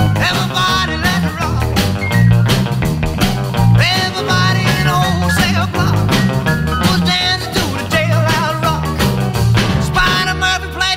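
Rock and roll music with a steady beat.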